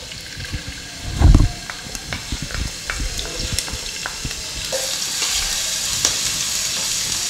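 Chopped ginger and garlic crackling and sizzling in hot oil in a nonstick pot, stirred with a wooden spatula. There is a dull thump about a second in, and the sizzle grows louder about halfway through as the aromatics fry.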